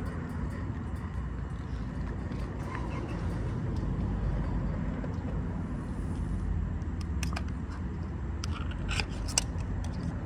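Steady low outdoor rumble, with a few short sharp clicks between about seven and nine and a half seconds in.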